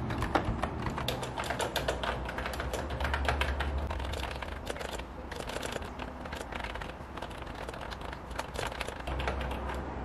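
Typing on a Mofii wireless mechanical keyboard with round typewriter-style keycaps: a fast, uneven clatter of key clicks, several a second.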